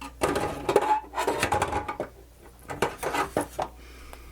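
Metal hand tools clattering and rattling as they are rummaged through in search of a sturdier screwdriver, in two spells of a second or two each; it goes quiet near the end.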